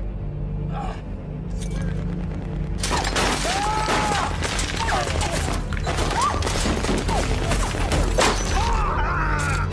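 Dense, sustained automatic rifle fire, many rapid shots with ringing impacts, breaking out about three seconds in over a low music drone.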